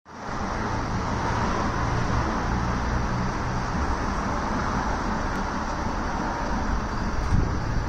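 City road traffic: cars driving past, with a steady rush of engine and tyre noise.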